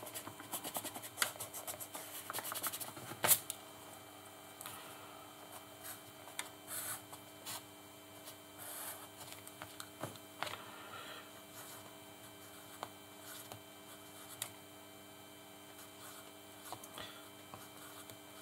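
Faint steady electrical hum. Over it, a quick run of small scratchy clicks for the first three seconds ends in one sharp click, and a few faint scattered clicks of handling noise follow.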